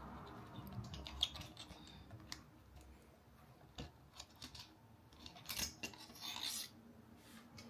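Scattered small clicks and rubbing of hard objects being handled, with a louder rustling scrape about five and a half seconds in that lasts about a second.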